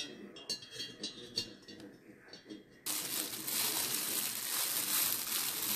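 Thin wire trivet clinking lightly against the inside of an enamelled cast-iron pot, a few small metallic ticks. About three seconds in, a louder steady hiss starts abruptly and keeps going.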